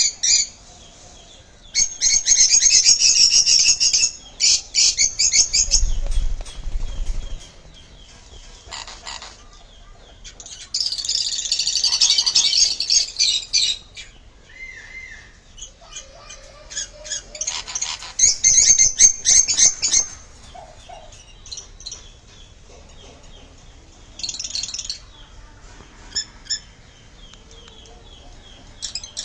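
Sun conure giving loud, harsh screeching calls in about five bouts of one to three seconds each, separated by quieter gaps with a few shorter squawks.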